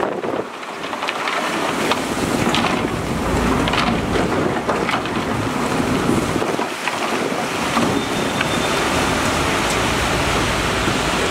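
Heavy earthmoving machinery working: a steady diesel rumble with scattered knocks and scrapes. The low rumble dips briefly near the start and again about two-thirds of the way in.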